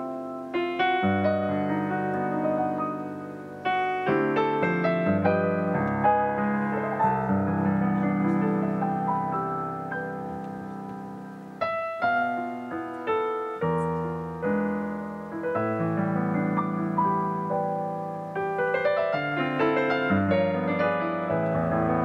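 Solo grand piano: full chords held over a low bass, broken by flurries of quick notes, with a run of fast notes near the end.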